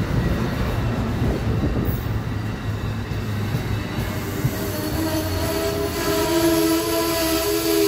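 Amtrak Northeast Regional train's Amfleet cars rolling past with a low rumble. About halfway through, a steady metallic squeal of wheels and brakes sets in as the train slows for its station stop.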